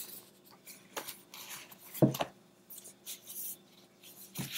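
Handling noise on a tabletop: rustling and a few soft knocks as objects are moved and set down, the firmest knock about two seconds in.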